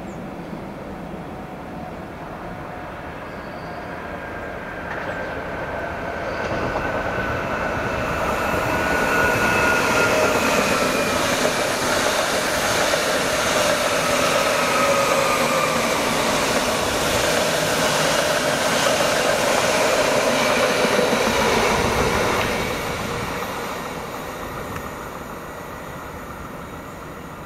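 A train passing by. Its running noise builds over the first several seconds and stays loud for about fifteen seconds, with whining tones that slowly fall in pitch, then fades away near the end.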